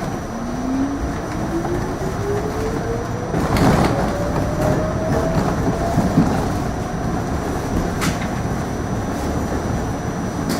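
R68 subway train accelerating: the traction motors whine in a steadily rising pitch over the first six seconds, over a running rumble, with wheels clattering over rail joints, loudest about three and a half seconds in.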